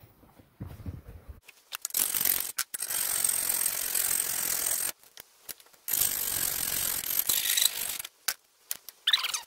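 A metal file rasping against the freshly cut, rough edge of a steel skid plate to smooth it. There are runs of rapid strokes: about three seconds of filing starting about two seconds in, a pause of about a second, a second run of about two seconds, and a third run beginning near the end.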